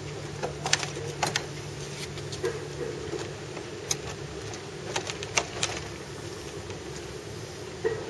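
Scattered sharp clicks and knocks, some in quick pairs, from parts being handled and fitted together during assembly. Under them runs a steady low hum with a low engine-like tone that fades about three seconds in.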